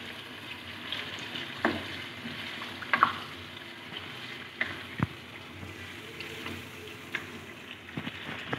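Chicken curry sizzling in a non-stick wok, just topped up with water for the gravy, as it is stirred with a slotted spoon, with several sharp knocks of the spoon against the pan.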